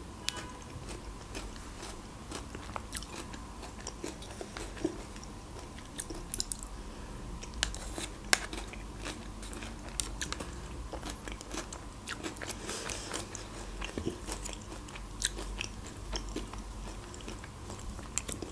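Close-up mouth sounds of someone eating yogurt from a spoon: irregular wet lip smacks and clicks of swallowing, with the teaspoon now and then tapping in the plastic yogurt cup.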